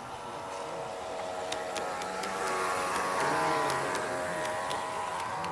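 A G-scale model railcar passing close by: the whine of its electric motor and gearing grows louder to a peak around the middle, then eases off, with scattered light clicks from its wheels on the track.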